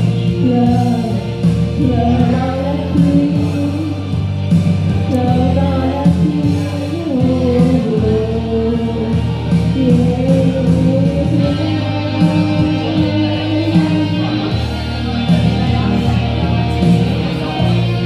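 Karaoke: a backing track with guitar plays, and a woman sings along into a microphone over the sound system.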